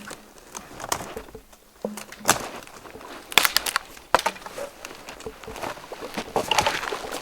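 Irregular snaps, crackles and rustles of someone moving on foot through dry brush and twigs, with a few sharper snaps along the way.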